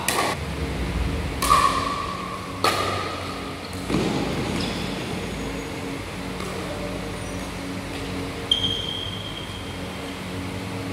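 Pickleball rally: sharp pops of paddles striking the hard plastic ball, four hits about a second and a quarter apart, some with a short ringing ping, then one more hit about eight and a half seconds in.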